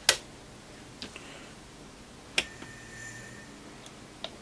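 Sharp switch clicks as a bench power unit is switched on: a loud click at the start, a faint one about a second in, another about two and a half seconds in followed by a faint high tone lasting about a second, and a last click near the end.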